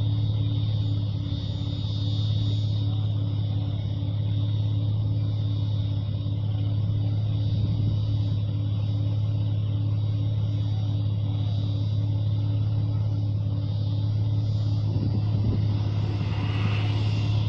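Nissan Patrol's RD28 2.8-litre straight-six diesel with compound turbos running at a steady drone, a high steady turbo whistle over it. Near the end the whistle rises in pitch.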